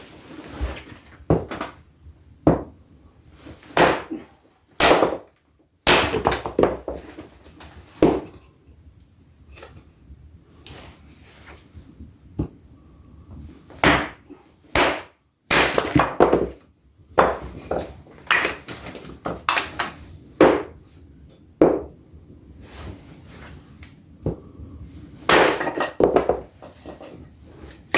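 A wood stove being loaded and lit: logs and metal stove parts knocking and clanking in irregular, sharp clunks, some ringing briefly.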